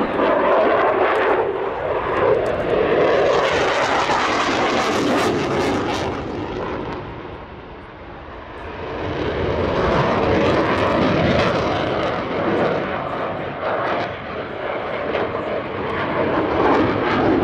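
Jet noise from a Saab JAS 39 Gripen's single Volvo RM12 turbofan as the fighter flies its display. The sound dips to its quietest about eight seconds in, then grows loud again as the jet comes back around.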